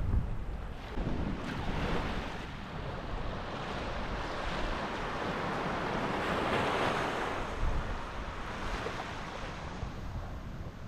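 Surf breaking and washing up a sandy beach, one wash swelling up through the middle and easing off, with wind rumbling on the microphone.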